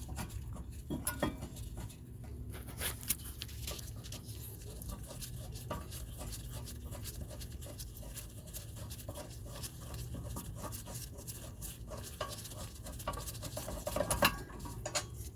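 Hand wrench on a brake caliper bracket bolt, with scattered light metallic clicks and taps as the already-loosened 14 mm bolts are backed out, over a steady low hum. The clicks come thicker near the end.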